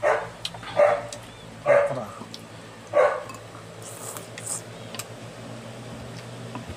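A dog barking four times in quick succession, spaced about a second apart, over the first three seconds.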